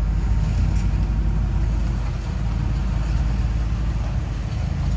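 Low, steady engine rumble of a heavy truck and cars moving slowly past on a steep uphill road.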